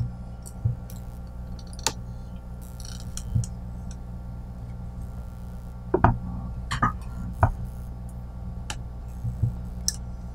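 Steady low hum with scattered light clicks and taps of handling, several close together about six seconds in.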